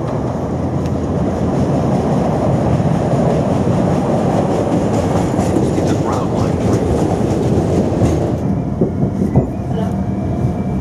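A Chicago 'L' elevated rapid-transit train coming alongside the platform, its wheels rumbling and clattering loudly on the rails. About eight seconds in, the sound changes abruptly to a quieter mix with a few knocks.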